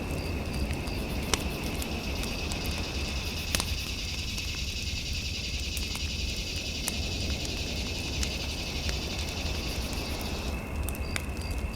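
Fire in a fireplace crackling, with occasional sharp pops over a low rumble, under a steady high tone. From about three and a half seconds to ten and a half seconds a high, fluttering chirring joins it.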